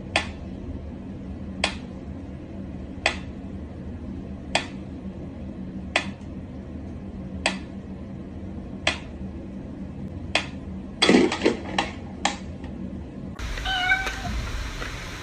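A domestic cat meowing near the end, after a run of short, sharp sounds that come about every second and a half and then several in quick succession.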